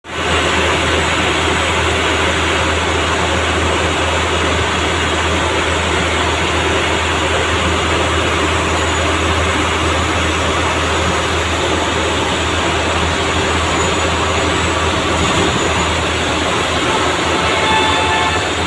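Steady engine drone and road noise heard from inside the cab of an MSRTC bus as it drives on a wet road. A horn sounds briefly near the end.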